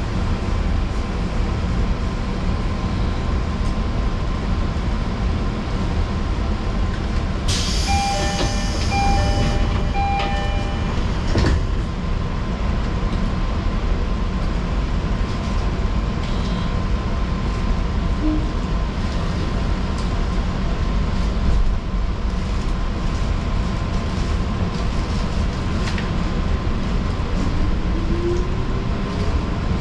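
Fujikyuko Line electric train running, a steady rumble of wheels and running gear from on board. About eight seconds in comes a brief high hiss with a few short repeated tones, and near the end a rising whine.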